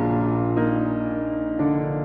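Background music of slow, sustained chords, changing about half a second in and again near the end.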